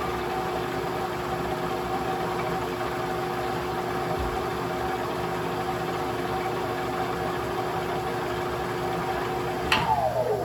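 Manual lathe running at steady speed through a thread-cutting pass, its motor and gears giving an even hum. Near the end a sharp click, and the motor's pitch falls away as the spindle is stopped.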